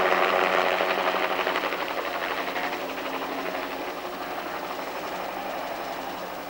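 Helicopter flying low, its rotor beating rapidly over a steady engine hum, fading gradually as it moves away.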